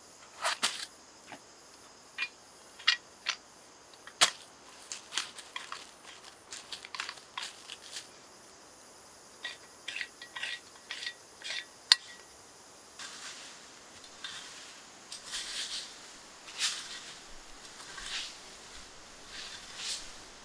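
A series of sharp snaps and clicks, irregular and one at a time, then softer crunching and rustling from about thirteen seconds in.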